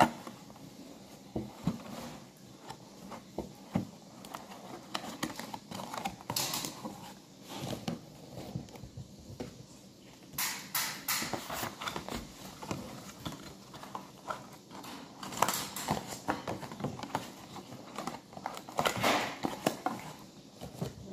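Paperboard boxes being folded and handled by hand: rustling, creasing and light taps of card on the table in irregular bursts.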